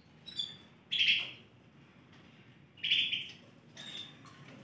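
Caged canaries calling: short, high chirps, loudest about a second in and again near three seconds, with fainter calls between.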